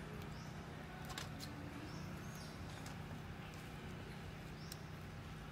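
Quiet outdoor ambience: a steady low hum with a few light clicks and three short, high chirps or squeaks.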